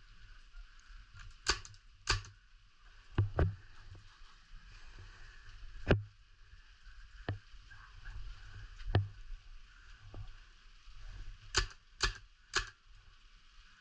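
Scattered sharp clicks and knocks, about ten at irregular intervals, over a faint steady hiss.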